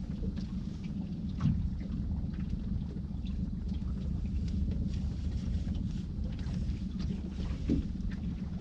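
Steady low rumble, with light rustling and small clicks of a waterproof jacket and a paper card being handled close to the microphone.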